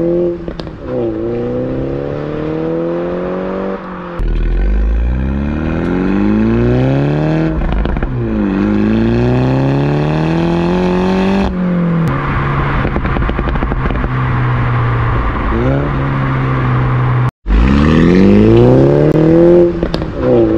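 2016 Mini John Cooper Works (F56) with a Stage II remap and JCW Pro exhaust, its turbocharged four-cylinder accelerating through the gears. The engine note climbs repeatedly and drops back at each upshift, with a spell of steady cruising in between.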